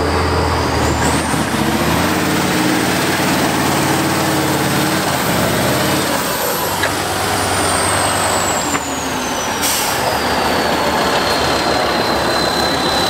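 Heavy competition truck's diesel engine working hard off-road, with a high whistle that rises early on and then slides slowly down in pitch. A short hiss comes about three quarters of the way through.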